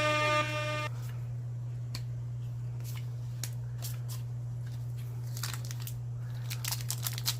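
The tail of an air-horn sound effect cuts off about a second in. Then come soft clicks of trading cards being handled, and near the end the crinkling of a foil booster pack wrapper, over a steady low electrical hum.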